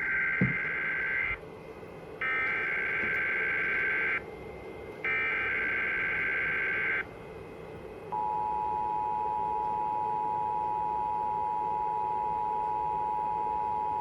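EAS header data bursts, three buzzy warbling squawks about two seconds each with short gaps between them, played by the Trilithic EASyCAST EAS encoder relaying the monthly test. About eight seconds in, the steady two-tone EAS attention signal (853 and 960 Hz) begins and holds.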